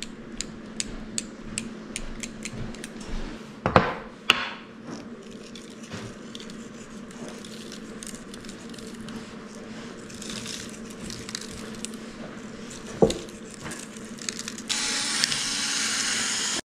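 Halved butternut squash being seasoned with salt and pepper: quick light ticks, about three a second, for the first few seconds. A couple of sharp knocks come about four seconds in and again near the end as the containers are handled on the counter. A steady hiss starts abruptly just before the end.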